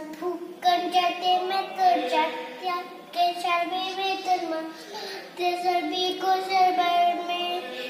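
A young girl singing a Hindu prayer in a chant, in phrases of steady held notes with short breaks between them.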